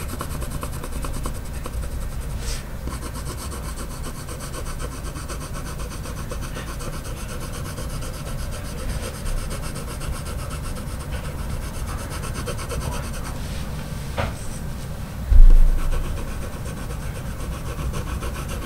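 Faber-Castell Polychromos coloured pencil (Warm Grey I) shading on paper with light pressure, short back-and-forth strokes making a steady scratchy rubbing. A single dull thump comes a few seconds before the end.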